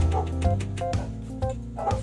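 Background music with a heavy bass beat and repeating melodic notes.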